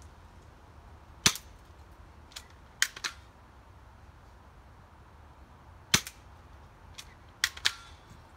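Cheap spring-powered airsoft submachine gun being cocked and fired: about eight sharp clicks and snaps at uneven intervals, the loudest about a second in and about six seconds in.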